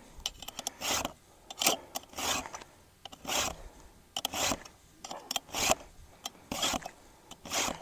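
Round chainsaw file in a file guide rasping across the cutting teeth of a chainsaw chain during hand sharpening. The file makes about ten strokes, roughly one a second, each a short scrape.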